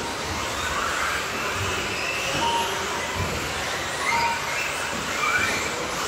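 Radio-controlled racing buggies' electric motors whining, rising in pitch several times as the cars accelerate, over the hum of the race. Short electronic beeps sound twice.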